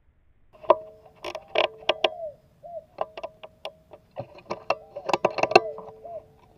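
A spotted dove cooing low, mixed with a rapid, irregular run of sharp clicks and knocks that starts about half a second in and carries the loudest peaks.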